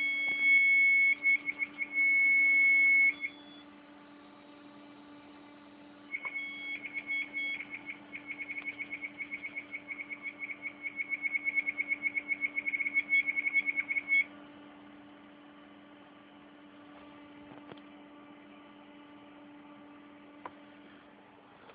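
A damaged hard disk drive gives a high-pitched whine that breaks into a few short beeps and stops about three seconds in, then after a pause a fast run of short beeps, about five or six a second, lasting some eight seconds, over the steady low hum of the running computer. After that only the hum remains.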